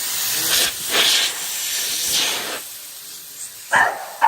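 Steady hiss with several louder surges, stopping about two and a half seconds in; then a dog barks twice near the end.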